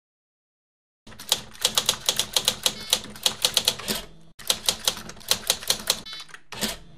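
Typewriter keys clacking in quick, uneven runs of strikes. They start about a second in, pause briefly just past the middle, and end with a last few strikes near the end.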